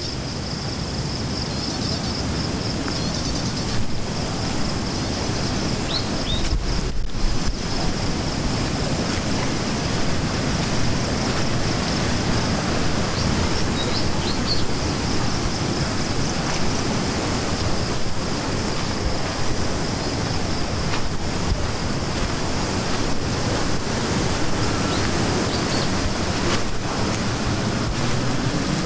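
A swollen, fast-flowing river rushing loudly over rocks, running high and muddy after a night of heavy rain. Above it runs a steady high pulsing chirr, typical of insects, with a few faint bird chirps.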